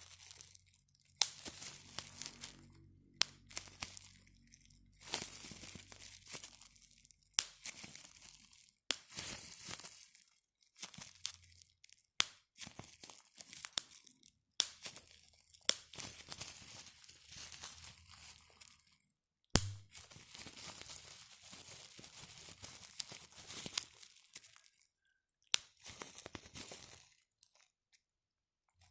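Plastic bubble wrap being squeezed and popped by hand in repeated handfuls: bursts of crackling and crinkling with sharp individual pops, separated by short pauses, and one especially sharp pop about two-thirds of the way through.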